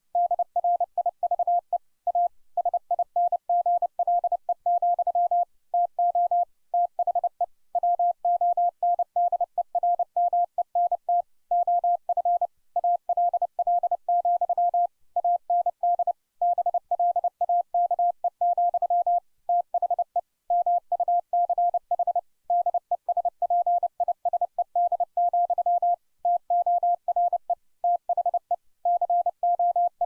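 Morse code (CW) sent at 30 words per minute as a single pure tone keyed rapidly on and off, with short breaks between words. It spells out the lines "T FLYNN LET DRIVE A SINGLE, TO THE WONDERMENT OF ALL, AND BLAKE, THE MUCH DESPISED, TORE THE CO" of "Casey at the Bat".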